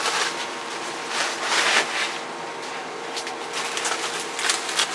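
Packing material, bubble wrap and plastic, rustling and crinkling as it is handled, in a few swells, with several sharp clicks in the second half.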